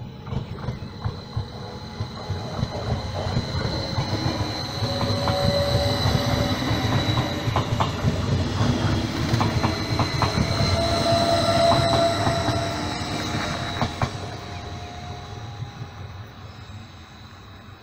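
Stadler KISS class 445 double-deck electric multiple unit passing close by as it departs, growing louder to a peak in the middle and then fading as it moves away. Wheels clack over rail joints and points in quick irregular clicks over a low rumble, with a steady high whine and a few mid-pitched tones.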